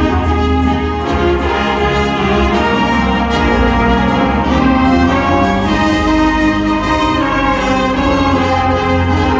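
High school wind ensemble playing, with brass to the fore, held full chords over a strong low bass line.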